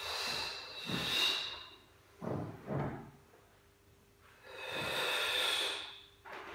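A woman breathing hard through an exercise effort. There are two long forceful exhales about four and a half seconds apart, with two short breaths between them.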